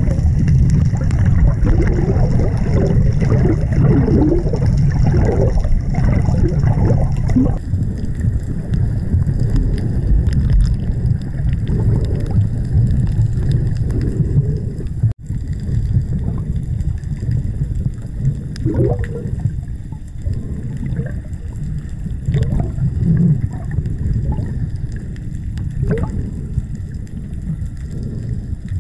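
Underwater sound heard through a camera's waterproof housing: a muffled low rumble of moving water with irregular gurgles and bubbles, broken by a brief cut-out about fifteen seconds in.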